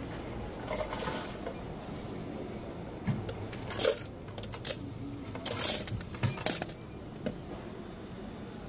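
Ice cubes clattering into a paper cup from the ice dispenser of a Coca-Cola Freestyle soda fountain, in several short bursts.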